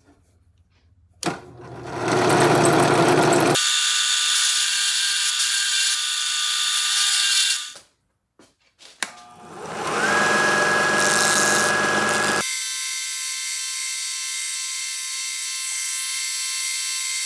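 Electric belt sander running while a small metal tool is sanded on it, in two long stretches with a brief stop about eight seconds in. The second run opens with the motor whine rising as it comes up to speed, then holds steady.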